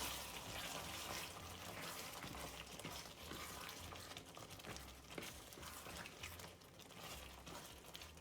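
Korma sauce bubbling in a pan at the boil, with a few faint clicks.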